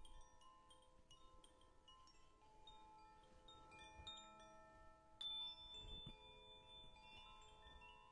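Singing bowls ringing on with long held tones, while many small bright chime tones tinkle over them one after another. One sharper, higher strike just after five seconds rings on as a single clear tone.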